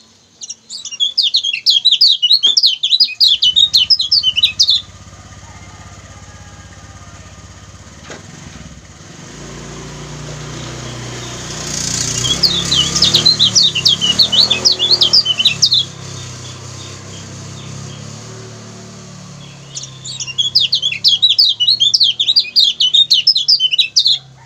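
Kecial kuning (yellow white-eye) giving rapid, high chattering 'ciak ciak' calls in three bouts of about four seconds each, with a low steady hum underneath.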